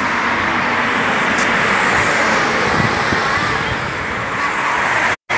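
Steady road traffic noise of cars passing on the road. The sound cuts out for a moment near the end.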